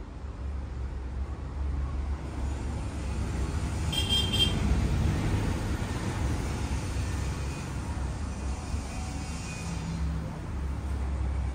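Road traffic rumbling steadily, with a short high-pitched horn toot about four seconds in.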